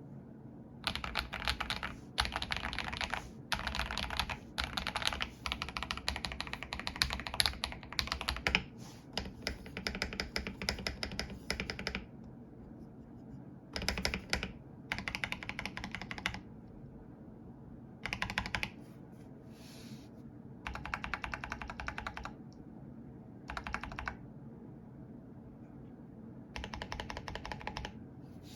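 Mechanical keyboard fitted with Akko Lavender Purple tactile switches being typed on, in fast runs of keystrokes. The runs are long in the first half and shorter in the second half, with pauses of a second or two between them.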